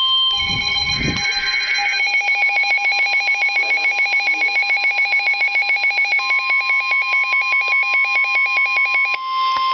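Emergency Alert System alert tones: an electronic tone pulsing rapidly, several times a second, over steady high tones. The pulsing stops shortly before the end.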